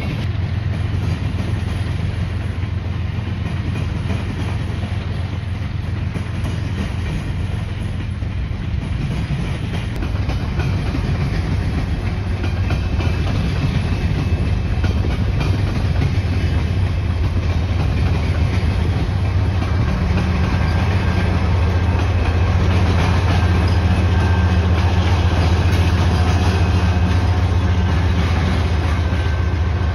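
Coal train cars rolling past, steel wheels clicking over the rail joints with a constant rumble. In the last third a Canadian Pacific diesel locomotive draws near and its engine drone grows louder.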